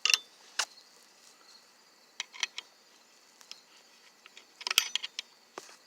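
Flathead screwdriver clicking and scraping on metal while prying at the variator's retaining C-clip: scattered sharp metal ticks, a few about two seconds in and a denser cluster near the end, some with a brief high ring.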